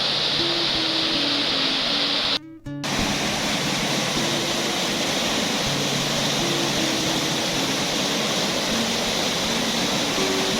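Steady rushing roar of a waterfall, under background music of slow held notes. The sound cuts out briefly about two and a half seconds in.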